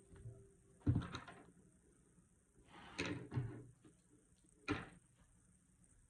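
Knocks and clatters of hard laptop parts being handled and set down: a cluster about a second in, another about three seconds in, and a single sharp knock a little later.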